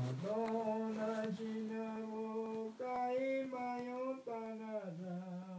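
A voice singing an icaro, an Amazonian ayahuasca ceremony chant, in long held notes that step up and then back down in pitch.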